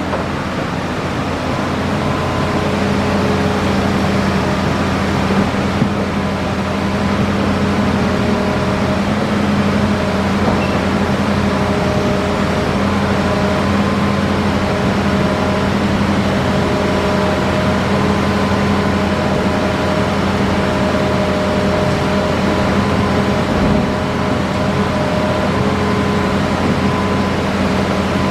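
Hitachi Zaxis excavator's diesel engine running steadily at working speed, a constant droning hum.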